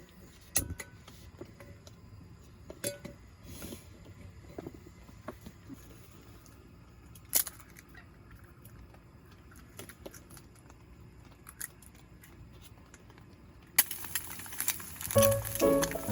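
Scattered light clicks and clinks, as of small objects being handled, over a quiet background. Near the end a steady hiss starts suddenly and background music comes in.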